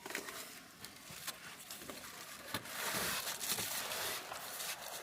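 Rustling and crinkling noise with many small clicks and knocks, growing louder a little before halfway.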